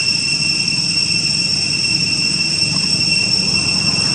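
Steady high-pitched insect drone, one unbroken shrill tone, over a low rumble.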